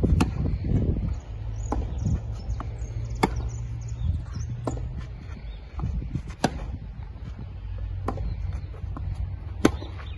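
Tennis racquets striking the ball in a baseline rally: a sharp pop about every second and a half, louder hits and softer ones taking turns, over a low rumble.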